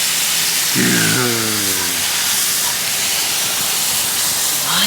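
Steady hiss of a water jet spraying, rinsing wheel cleaner off a car wheel.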